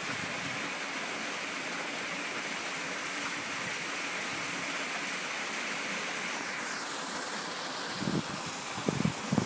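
Small waterfall pouring steadily into a rock pool, an even splashing hiss. Near the end a few short low bumps break in.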